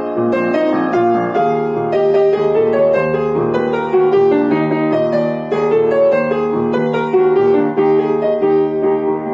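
Solo piano playing a pop song arrangement: a melody in the middle register over sustained low bass notes and chords.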